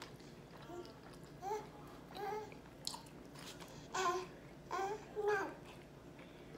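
A toddler babbling: a string of short, high wordless vocal sounds, the loudest of them between about four and five and a half seconds in.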